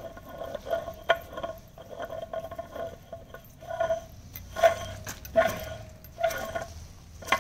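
Metal clanking: about seven sharp knocks at uneven intervals, each leaving a short ringing tone, as metal fittings are knocked and worked on the cap of a steel balloon-gas generator cylinder.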